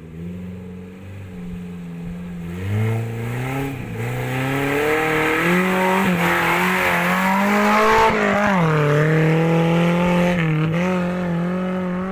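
A Suzuki 4x4 off-roader's engine revving hard on heavy throttle, its pitch swinging up and down. It grows louder from about a quarter of the way in, is loudest about two-thirds through, dips briefly, then holds at high revs.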